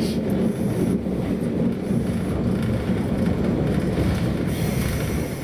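Sapporo streetcar type 240 running along its rails, a steady low rumble of the car and its wheels. A higher hiss joins near the end.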